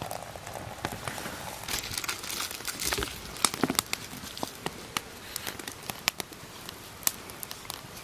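Food packaging crinkling and crackling as it is handled, with scattered small clicks and taps at irregular intervals, while oatmeal is being made.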